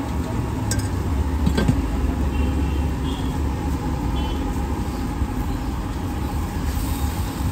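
Steady low rumble of street traffic, with two sharp clicks in the first two seconds.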